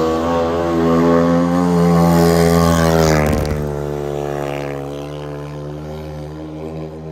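Racing motorcycle engine held at high, fairly steady revs as the bike laps a dirt oval, with a brief rushing noise about three seconds in; the engine drone then fades gradually as the bike pulls away.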